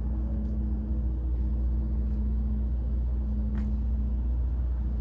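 A vehicle engine running steadily, a low even hum.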